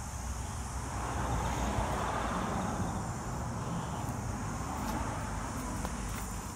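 Road traffic: a vehicle passing by, its noise swelling about a second in and slowly fading, over a steady low rumble.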